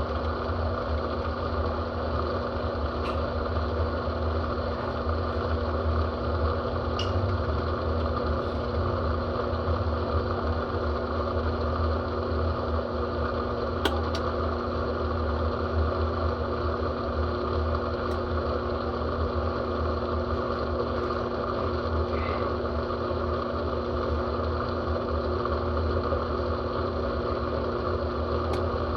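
Brastemp Total 7 kg washing machine running mid-wash: a steady motor hum with a few faint clicks.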